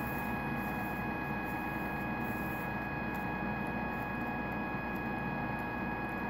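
Electrosurgical unit giving its steady high two-note activation tone while the needle handpiece is applied to the mole's base, over a steady electrical hum.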